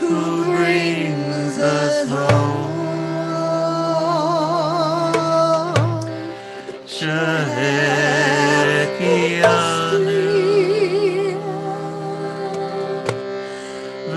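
A woman's voice singing a slow devotional chant with a wavering vibrato over a steady held drone, with a few drum strikes spaced through it.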